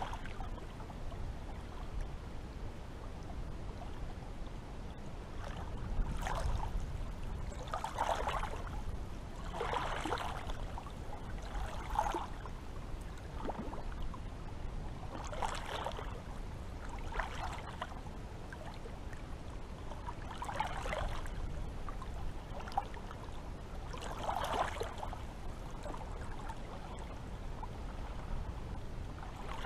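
Small sea waves lapping and sloshing at the water's edge, one soft splash every two to four seconds, over a steady low rumble.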